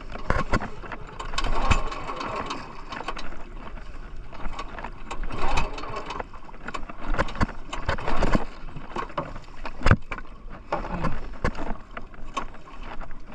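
Water slapping and splashing against the side of a small wooden outrigger boat, with irregular knocks and bumps of things moving aboard. No engine runs; the outboard has died.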